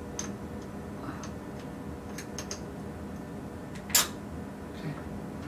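Light clicks and taps of a metal pointer being fitted by hand into an industrial robot arm's gripper, with one sharper, louder click about four seconds in, over a steady hum.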